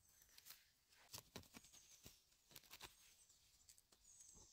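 Faint, scattered rustles and small snaps of low forest-floor plants being handled and chanterelle stems being cut with a small knife.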